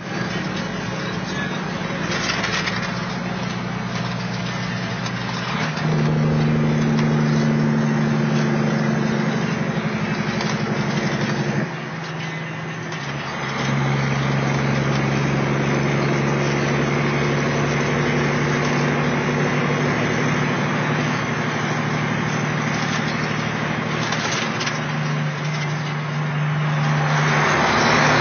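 Kenworth T600A semi truck's Caterpillar diesel engine running at road speed, heard from inside the cab over road noise. The engine note rises and gets louder about six seconds in. Near twelve seconds it drops away briefly and comes back lower. Road noise swells near the end as the truck enters a tunnel.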